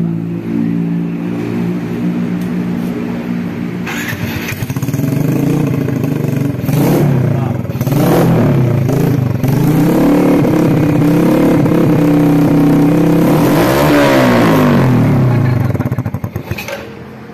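Yamaha Vega R New's small four-stroke single running through an open bobokan racing exhaust whose glasswool packing has been replaced with sand. It idles, is blipped from about four seconds in, then held and revved up and down at higher speed, peaking around fourteen seconds before dropping back to idle near the end.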